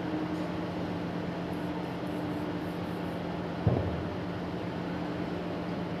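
A steady mechanical hum with a low drone throughout, and one short knock a little past halfway as a part of the dismantled starter is handled on the bench.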